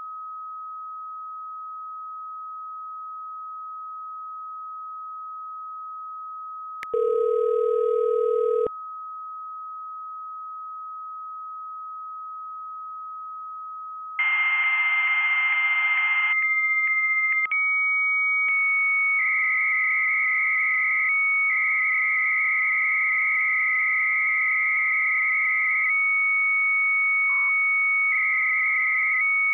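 Software modem playing a steady 1270 Hz Bell 103 carrier tone down a phone line. About seven seconds in, a lower ringing tone sounds once for about two seconds; about fourteen seconds in, the answering 56K modem picks up with a hissy tone, then holds a higher steady carrier that warbles in stretches as 300-baud data comes through, while the first tone warbles briefly near the end as text is sent back.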